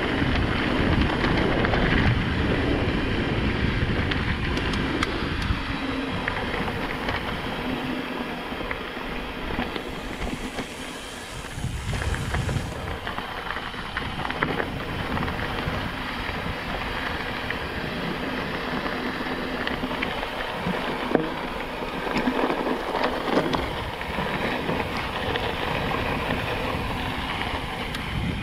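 YT Decoy 29 mountain bike rolling fast down a gravel doubletrack: tyres crunching over loose stones and the bike rattling, with many small clicks and knocks, over a rush of wind on the microphone. The noise eases briefly about eleven seconds in.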